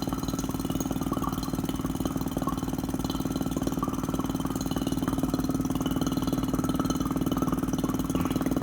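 Electric vacuum pump running steadily with a hum and a rapid, even pulsing.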